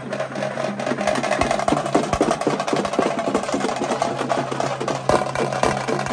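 Fast, dense drumming: many quick strikes a second with no break, over a steady hum.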